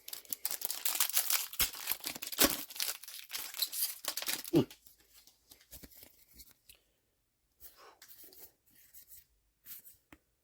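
A trading-card booster pack wrapper being torn open, with dense crinkling and tearing for about four and a half seconds, followed by sparse light rustles and ticks of the cards being handled.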